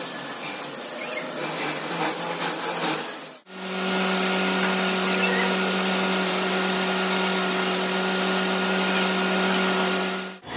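Machine-shop noise with a rough, noisy texture. After a sudden cut about three seconds in, a heavy metalworking machine runs with a steady, even hum.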